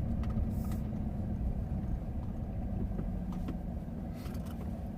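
Car engine running with a steady low rumble, with a few faint clicks now and then.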